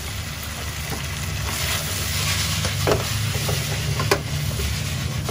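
Rice with kimchi and gochujang sauce sizzling in a wok as it is stirred with a wooden spatula. Two sharp knocks of the spatula against the pan come about three and four seconds in.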